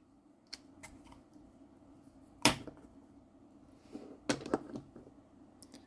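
Scattered small clicks and taps of hand-loading a .410 shotshell, as a cork spacer is fitted over the powder in the hull: one sharper tap about halfway through and a quick run of taps a little later.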